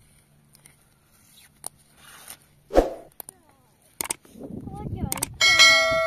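Subscribe-button sound effect: clicks about four and five seconds in, then a bright bell ding that keeps ringing as it fades. A short, sharp knock comes earlier, about three seconds in.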